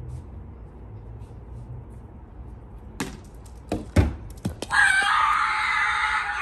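A few sharp knocks as a tee-ball bat is swung at the ball on a batting tee, the loudest about four seconds in as the bat strikes. Right after, a child lets out a long, high-pitched scream.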